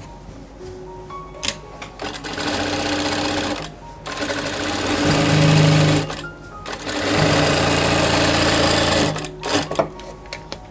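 Industrial flatbed lockstitch sewing machine stitching net lace onto gathered fabric in three runs of about one and a half to two seconds, the middle run getting louder. Short clicks come between the runs as the fabric is repositioned.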